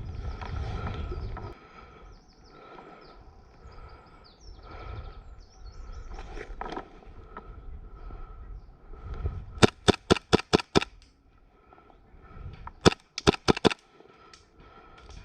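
Airsoft rifle firing two quick strings of shots: about eight sharp cracks in a little over a second, then about five more a couple of seconds later.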